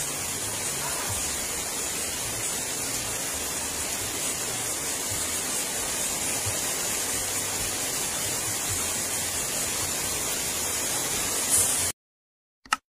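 Steady hiss of rain falling on a pond's open water. It cuts off abruptly near the end, followed by a single short click.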